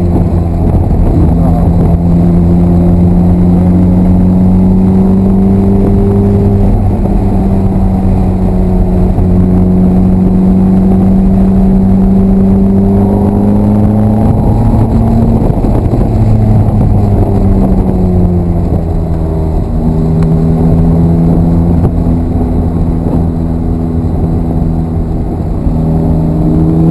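Ferrari F430's V8 engine heard from inside the cabin on a track lap, running hard at a fairly steady pitch; about two-thirds of the way through the note falls away and then picks up again.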